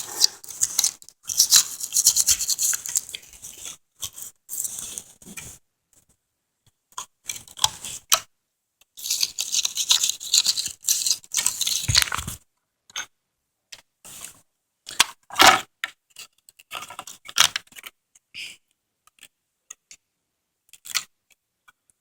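Quick back-and-forth scrubbing and scraping of a hard tool on a tablet's ribbon-cable contacts to clean them. It comes in bursts of rapid strokes, with pauses and a few single scrapes later on.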